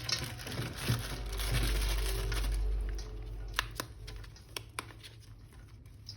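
Plastic toy packaging crinkling and rustling as it is handled and opened, with a low handling rumble, then a few sharp light clicks of hard plastic about midway.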